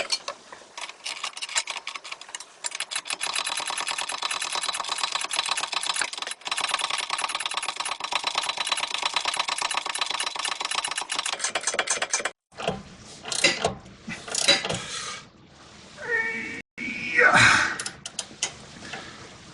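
Ratchet wrench clicking rapidly as the nut on the lower end of a new sway bar link is wound on and tightened. The clicking stops about twelve seconds in. After that come a few scattered knocks and short squeaks.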